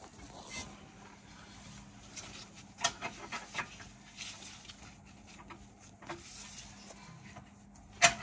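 Scattered light metallic clicks and knocks of hands and tools working on a car's rear sway bar end link and its nut, with a sharper knock near the end, over a faint steady hum.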